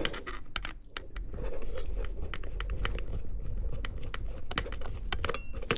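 Cross-head screwdriver bit undoing a small screw on a Flowatch anemometer display: a run of small clicks and scratching.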